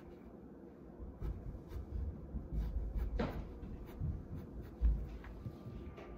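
Wooden pencil scratching on paper in short strokes while drawing, with soft low bumps against the tabletop; the loudest bump comes near five seconds in.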